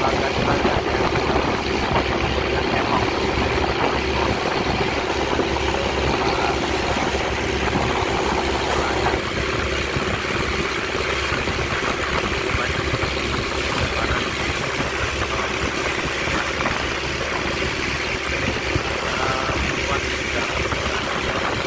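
Small wooden boat's engine running steadily under way, with water rushing and splashing along the hull as it pushes through choppy waves.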